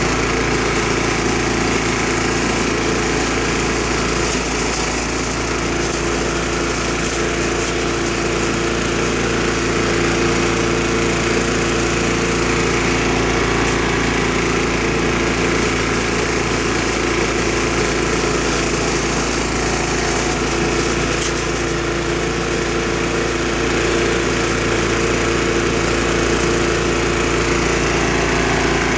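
Craftsman 4-in-1 chipper/shredder yard vacuum running steadily at speed, its small gas engine humming evenly under a rush of air through the vacuum.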